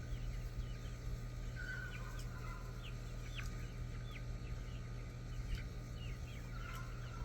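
Baby chicks peeping: scattered short, high peeps that drop in pitch, with a few longer calls, over a steady low hum.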